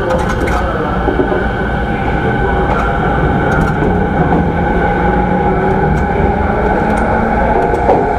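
Running noise inside a motor car of a JR East E217 series electric train fitted with renewed traction equipment: a steady rumble of wheels on rail and traction motors, with a few light clicks.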